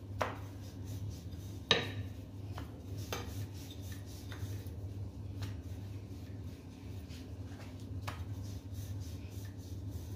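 Rolling pin rolling out a stuffed aloo paratha on a stone surface: a soft scraping rub with a few light knocks, the loudest about two seconds in, over a steady low hum.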